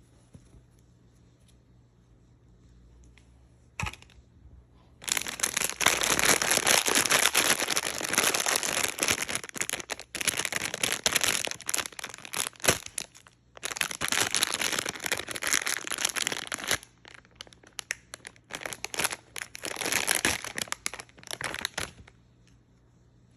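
Doll packaging being handled, crinkling and tearing in long noisy stretches with short pauses, after a single click.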